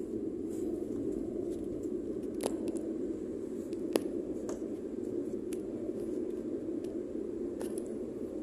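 Steady road and engine hum heard inside a moving car's cabin at highway speed, with a few light clicks, the sharpest about four seconds in.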